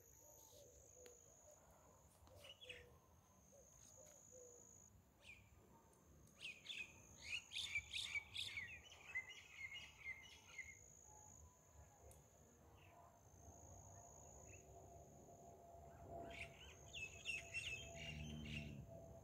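Faint birdsong: quick chirping calls in two spells, the busiest about a third of the way in and another near the end, over a steady high insect trill.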